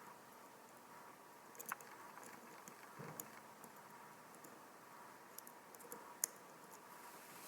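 Faint, scattered small clicks and taps of a tiny screwdriver and watch parts being handled inside an opened wristwatch case, over quiet room tone; the sharpest click comes near the end.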